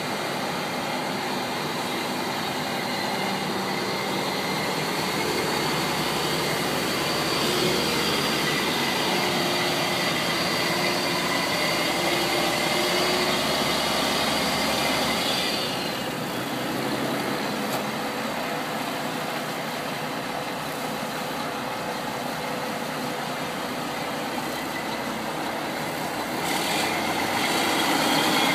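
Diesel engine of a 2001 Mack RD688S semi-truck tractor idling steadily. A high hiss that runs alongside it drops away about halfway through.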